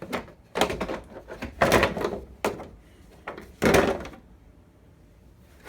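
Plastic back cover of an LCD TV being lifted off its housing: a series of scrapes and knocks of plastic over the first four seconds.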